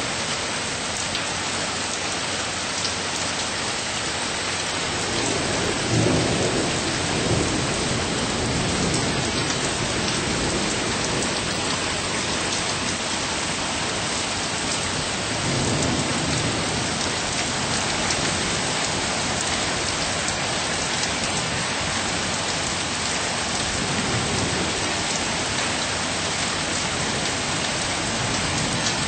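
Steady rain falling, with thunder rumbling three times: the loudest about six seconds in, another around sixteen seconds in, and a fainter one near twenty-four seconds.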